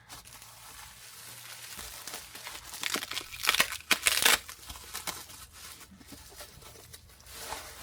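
Packaging crinkling and tearing as it is handled and pulled open, with the loudest bursts of crinkling about three to four seconds in.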